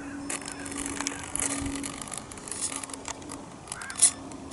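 Small servos of an FPV camera's pan-and-tilt mount whirring in short bursts, over a steady low hum.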